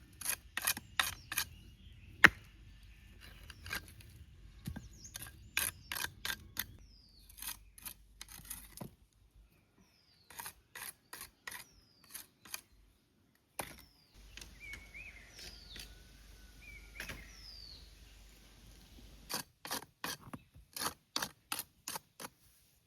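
Bricks knocking and clinking against each other as fallen wall bricks are picked up and stacked: sharp, irregular clicks in quick clusters with short pauses between. A bird chirps a few times in the middle.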